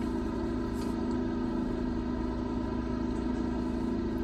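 Steady motor hum at a constant pitch, unchanging throughout.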